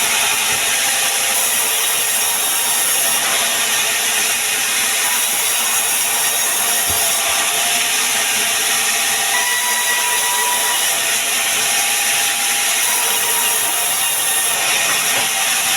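Sawmill saw cutting through pine timber: a steady, continuous cutting noise of the blade in the wood.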